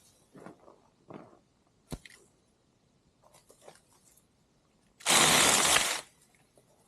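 Light crackling and rustling of brush with a sharp click about two seconds in, then a loud one-second burst of the Saker 6-inch battery mini chainsaw running as it cuts through a small branch.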